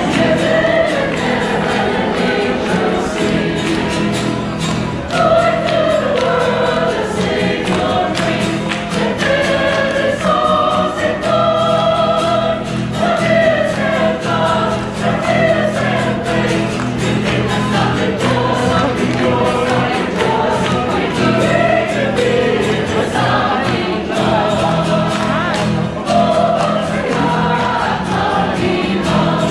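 A choir singing a hymn with a steady instrumental accompaniment of held low notes.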